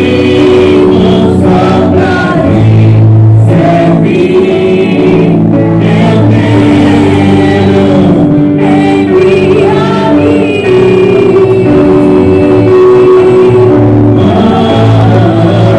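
A worship group singing a slow gospel hymn with several voices together over a band, with a steady bass and held notes.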